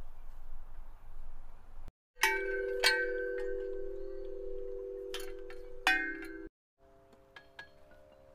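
Large outdoor playground chimes, hanging metal tubes struck by hand. About two seconds in, four strikes set several tubes ringing with long, steady bell tones. The first two seconds hold only steady background noise, and near the end the tubes ring softly under a few light taps.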